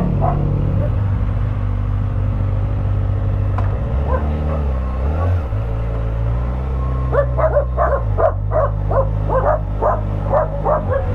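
An engine idling steadily, its pitch shifting briefly about four seconds in. A dog barks rapidly, about three barks a second, through the last four seconds.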